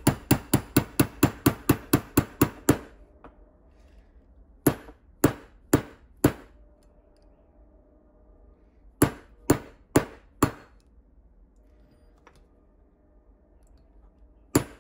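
Hammer tapping a steel pin punch to drive the roll pin that retains the firing pin in a CZ 97B pistol slide. First comes a quick run of about a dozen sharp metallic taps, about four a second, then two groups of four slower taps and a single tap near the end.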